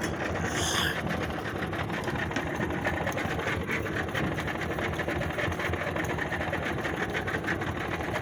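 Outboard motor of a small fishing boat running steadily with a rapid, even beat.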